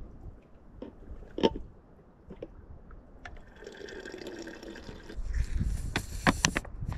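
Water trickling through a squeezed Sawyer Squeeze filter into a plastic bottle for a second or two past the middle, followed by crinkling and clicking of the plastic bottles as they are handled. A single sharp click comes about a second and a half in.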